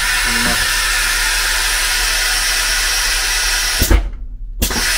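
Loud steady hiss of compressed air from the carriage's air system. It cuts off with a click about four seconds in and starts again with another click half a second later.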